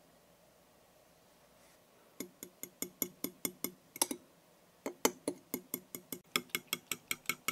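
A metal fork beating eggs in a glass bowl, clinking quickly and regularly against the glass at about five strikes a second, with a brief pause partway through. The first two seconds are near silent.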